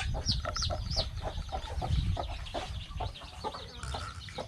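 A flock of backyard chickens clucking, with many short, high, rising-and-falling peeping calls over them, over a low rumble.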